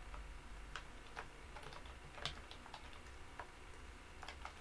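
Typing on a computer keyboard: irregular key clicks, several a second, with a slightly louder stroke a little past the middle.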